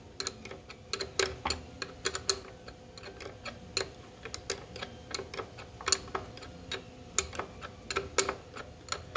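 Irregular light clicks and taps, a few a second, of a wrench working the arbor bolt of a Ryobi miter saw as the bolt is tightened against an abrasive cut-off wheel.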